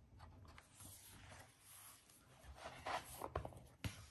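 Hardcover picture book being closed and slid across a wooden tabletop: faint rubbing and a few soft knocks, starting about halfway through.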